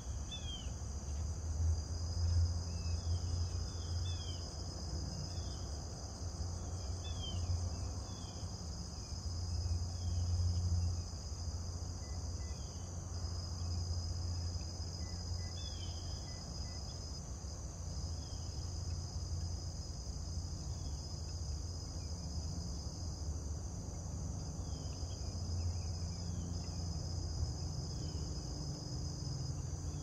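Steady high-pitched chorus of insects, with short falling chirps from a small bird now and then, most often in the first half. A low rumble runs underneath.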